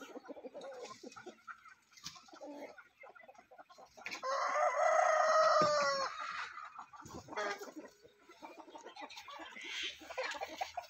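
Desi-breed rooster crowing once, a single long crow of about two seconds beginning about four seconds in, with hens clucking faintly around it.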